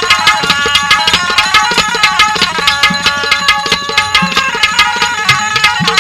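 Instrumental interlude of Indian folk music: a hand drum played in a quick, steady rhythm, about five or six strokes a second, under a stepping melody on a melody instrument.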